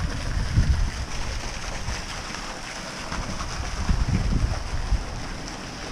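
Wind buffeting the microphone in two gusts, the first at the start and the second about halfway through, over the steady splashing of a small fountain jet.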